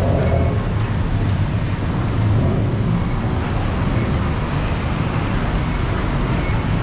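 Steady city street noise: a constant low rumble of road traffic.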